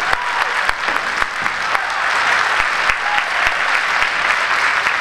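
Steady applause from spectators filling a large sports hall, a dense patter of many hands clapping, with a few sharper claps standing out.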